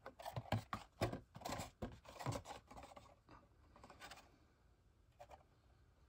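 A VHS tape in its printed cardboard sleeve being handled and turned over in the hand: a quick run of small scrapes, rubs and clicks over the first couple of seconds, then a few scattered ones.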